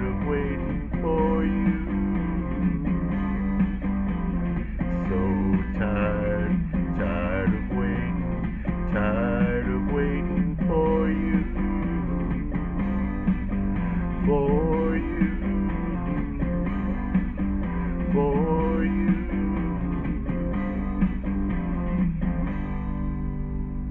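Guitar-led backing music with a steady bass line and a melody line bending in pitch over it; it thins out to a held chord near the end.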